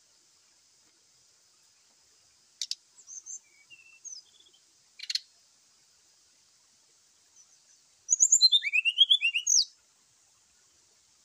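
Brown-chested jungle flycatcher giving its aggressive fighting song: two sharp clicks with a few short whistled notes between them, then near the end a fast burst of a dozen or so rising, chattering notes, the loudest part.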